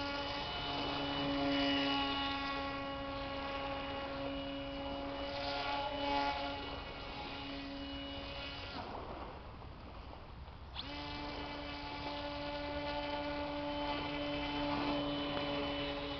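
Hand-made RC airboat's motor and air propeller running with a steady, even-pitched buzz. A little past halfway the buzz drops out for about two seconds, then comes back on suddenly.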